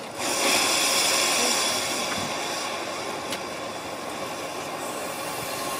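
A miniature 15-inch-gauge steam locomotive letting off steam: a sudden loud hiss that is strongest for the first two or three seconds, then eases to a quieter, steady hiss.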